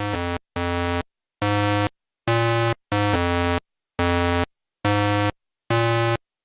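Background music: simple electronic synthesizer notes, each held about half a second with silence between, about one a second.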